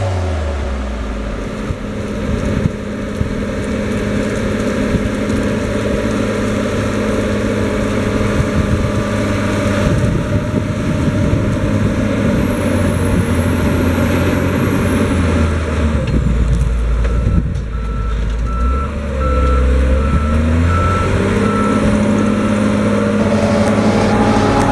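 Case IH STX 450 Quadtrac tractor's engine running steadily while ploughing. Past the middle, a warning beeper sounds a steady series of evenly spaced beeps for several seconds.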